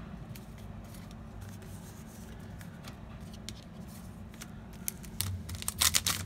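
Trading-card booster pack being handled and opened: light scattered clicks of cards and wrapper, then a loud crinkling tear of the foil pack near the end, over a steady low hum.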